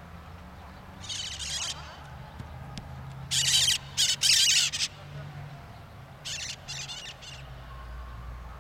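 Birds squawking in harsh, raspy calls, several in a row, the loudest about three to five seconds in.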